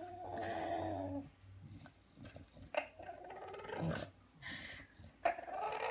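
Bulldog making strange drawn-out vocal noises: a long pitched moan that drops in pitch and stops about a second in, a few short breathy sounds, then another long moan starting near the end.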